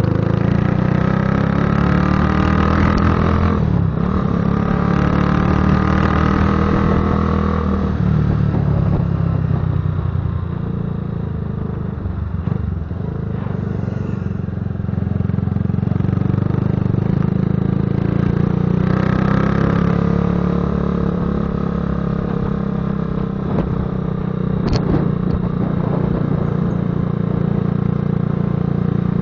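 Patagonia Eagle motorcycle running on the move, with a deep rumbling exhaust note. The engine pitch drops and climbs again a few times.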